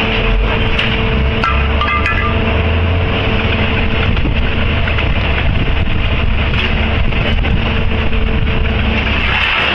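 Engine of a heavy construction machine running steadily, a deep rumble with a steady hum over it.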